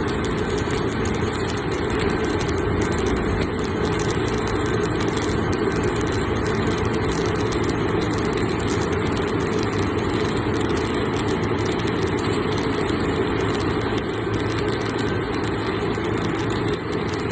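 Steady engine-like machinery noise, even throughout and heaviest in the low range, while vertical electric arc (stick) welding goes on.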